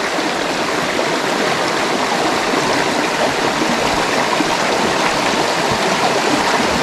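Shallow rocky stream running steadily over stones, the continuous rush of a small riffle.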